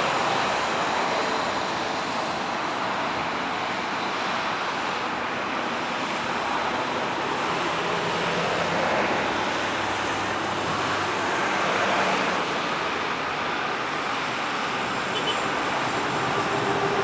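Steady rushing jet noise from a Boeing 737-800's CFM56 engines, heard from the ground as the airliner rolls after landing, swelling slightly now and then.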